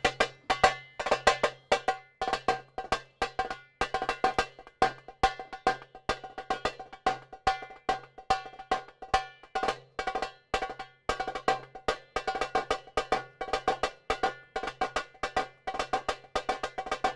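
Goblet drum (darbuka) beaten with two thin sticks in place of the naqrazan kettledrums, playing a fast, steady Upper Egyptian (Saidi) rhythm. The strokes are rapid and each has a ringing tone.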